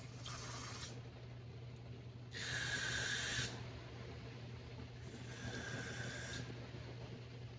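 Aerosol carburetor cleaner sprayed in three short hissing bursts of about a second each, the middle one the loudest, onto snowblower carburetor parts.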